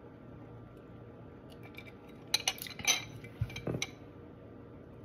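Ice and a straw clinking against a drinking glass: a quick cluster of sharp clinks about two seconds in, then a couple more clinks with soft knocks as the glass is moved.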